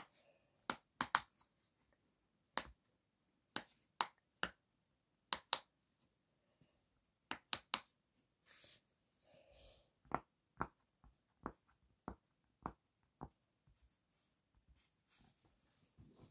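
Silicone pop-it fidget toy's bubbles being pressed one by one with a fingertip: sharp little pops at an uneven pace, often one or two a second, now and then a quick pair or three in a row. Soft rustling of handling a little past halfway and again near the end.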